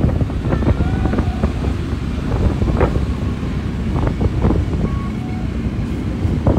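Wind buffeting the phone's microphone over the low rumble of a moving motorcycle, with a few short higher tones cutting through now and then.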